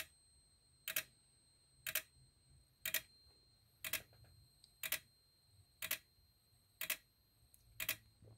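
Relays in a Simplex 4905-9938 SmartSync module clicking about once a second, each a quick double click. The steady clicking shows the module is powered and working.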